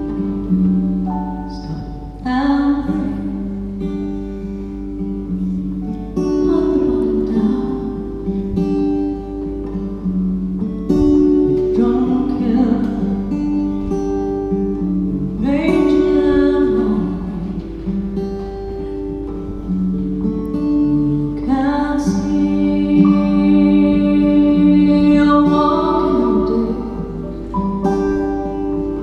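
Live acoustic band music: strummed acoustic guitar with a voice singing over it.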